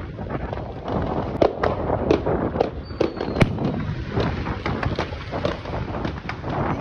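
Large aerial firework shells bursting overhead: a rapid series of booms and sharp cracks, the loudest about one and a half and three and a half seconds in, over a continuous low rumble.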